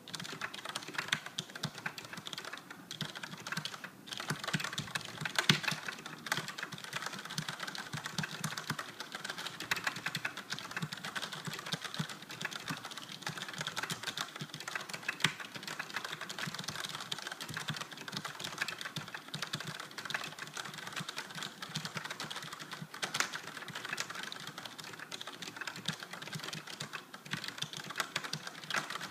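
Fast continuous typing on a Logitech G710+ mechanical keyboard with Cherry MX Brown switches: a dense stream of key clacks with a brief pause about four seconds in.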